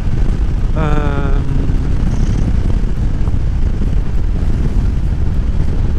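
Motorcycle on the move: a steady low wind roar on the microphone over the running Yamaha Tracer 7's parallel-twin engine.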